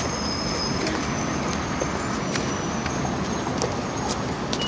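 Steady city street traffic noise, vehicles running past, with a faint high whine in the first second and a few light clicks.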